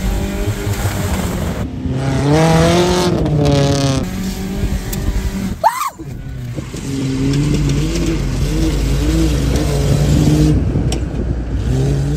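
Vehicle engines revving hard in a race, the pitch climbing and falling again and again. About halfway through there is a brief, sharp rising squeal.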